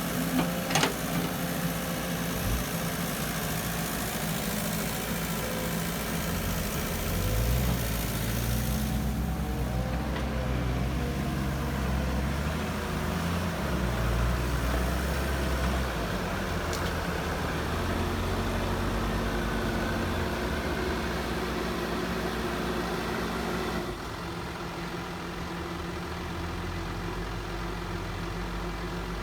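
Heavy construction machine's engine running continuously. Its pitch rises and shifts a few times, then drops to a lower, quieter run near the end.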